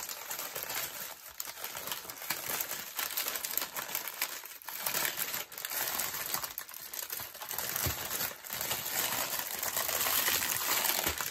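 Clear plastic packaging crinkling and crackling as a bundle of small packets of diamond painting drills is folded up and pressed into a plastic bag, the little drills rattling and clicking inside their packets.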